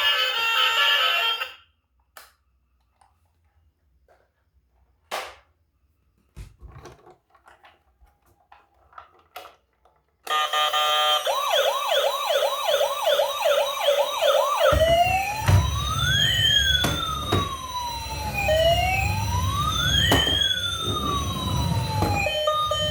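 Electronic emergency-vehicle siren. It starts with a fast yelp of quick rising sweeps, about two or three a second. About halfway through it switches to a slow wail, two tones gliding up and down and crossing each other, over a low rumble.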